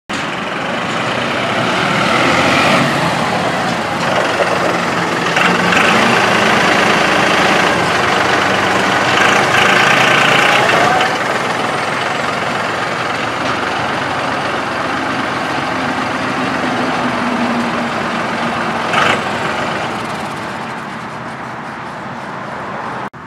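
Massey Ferguson 2607 utility tractor's diesel engine running as the tractor drives with its front loader, with one short sharp knock about nineteen seconds in; the engine sound fades over the last few seconds.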